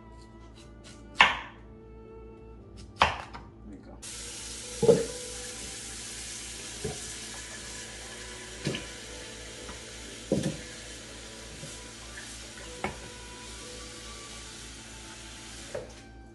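A knife chops twice through peeled cassava on a wooden cutting board. Then a kitchen tap runs steadily into a pot in the sink, with a cassava chunk dropped in with a thud every couple of seconds, until the tap shuts off near the end. Soft background music plays underneath.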